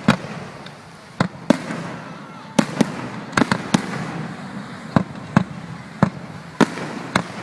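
Fireworks display: aerial shells bursting in sharp bangs at irregular intervals, about fourteen of them, sometimes two or three in quick succession, over a steady background of noise.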